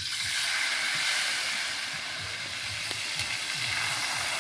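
Hot oil in a wok sizzling as peeled boiled eggs, rubbed with salt and turmeric, are tipped in. The sizzle sets in suddenly and carries on as a steady hiss.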